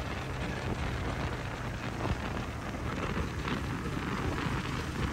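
Motorcycle engine running at steady road speed, mixed with wind rushing over the microphone as the bike moves.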